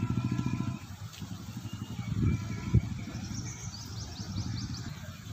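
A nearby engine runs loud and pulsing, then drops away about a second in, leaving a fainter low engine hum. A single thump comes past the middle, followed by a bird's quick run of high chirps.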